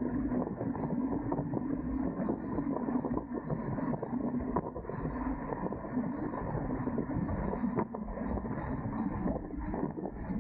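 Wind buffeting the microphone and water rushing along the hulls of a Dart 18 catamaran under sail, with frequent small knocks and splashes throughout.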